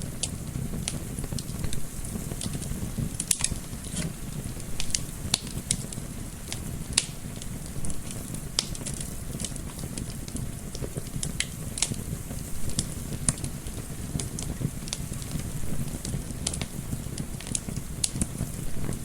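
Wood fire burning in a fireplace, crackling with irregular sharp pops over a steady low rumble of the flames. A soft wind layer runs under it.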